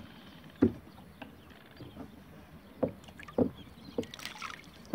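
Water lapping against a kayak hull, with a few short soft knocks and a brief splashy hiss about four seconds in as the line and float come up out of the water.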